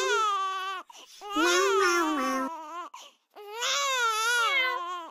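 A voice crying in long, wavering wails, three cries with short breaks between them.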